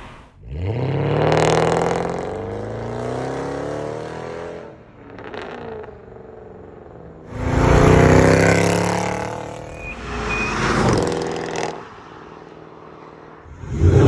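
Mercedes-Benz W204 C63 AMG's 6.2-litre M156 V8 exhaust, with the secondary catalytic converters and the resonator replaced by straight pipes to the stock mufflers. The engine revs up and accelerates in loud bursts: its pitch rises about half a second in, again around seven seconds in, and once more near eleven seconds.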